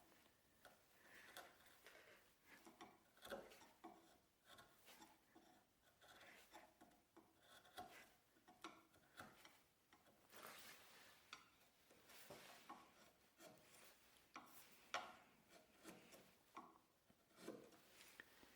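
Faint, irregular rubbing and scraping strokes of a hand tool working wood.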